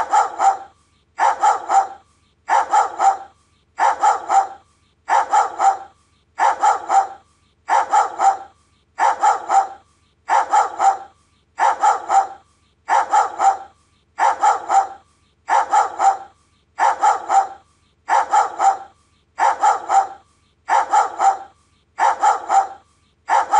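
Doberman barking in quick runs of three barks, each run repeating evenly about every one and a half seconds.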